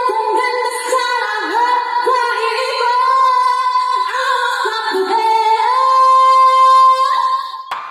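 A female singer singing live into a microphone through a concert sound system, holding long notes, recorded from the crowd. The singing breaks off abruptly near the end.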